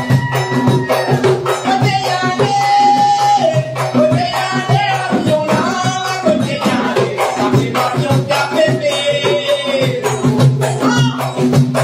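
Live Mauritian séga tipik: ravanne frame drums beating a dense, driving rhythm with a shaker rattle, under a man singing a held melody.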